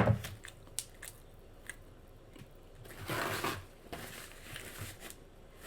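Close-miked chewing and lip smacking on a bacon cheeseburger: a sharp, loud smack right at the start, then scattered small wet clicks, with a brief breathy rush about three seconds in.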